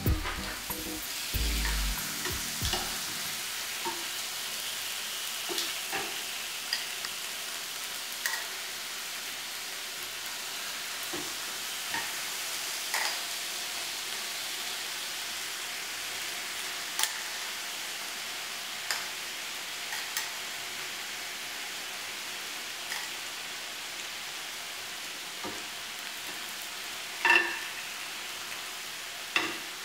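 Marinated calamari sizzling on a hot grill plate, a steady frying hiss with a few sharp clicks scattered through it, the loudest a ringing clink near the end.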